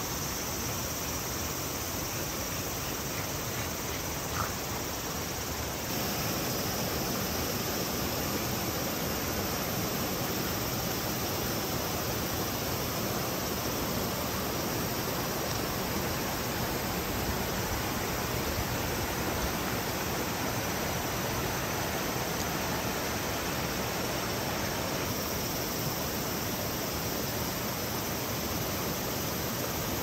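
Mountain stream rushing over and between rocks: a steady, even hiss of flowing water that gets louder about six seconds in.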